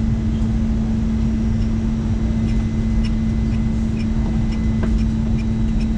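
Steady airliner cabin noise: a low rumble with a constant hum, and a few faint clicks.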